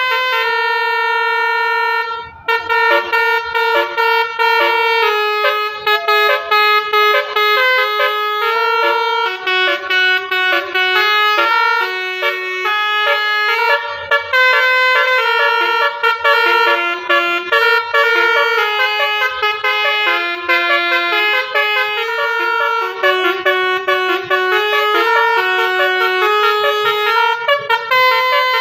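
Bus telolet horn playing a long melody: several horn tones sound together as a chord, stepping up and down in pitch note by note without a pause.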